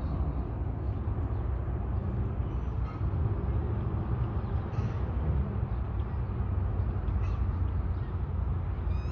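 Steady low rumble with no rise or fall, and a few faint bird chirps about five and seven seconds in.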